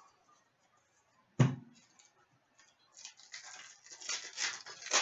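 A single sharp knock about a second and a half in, as the stack of cards goes down on the glass tabletop. Then a few seconds of uneven crinkling and rustling of foil trading-card pack wrappers as a pack is pulled from the box.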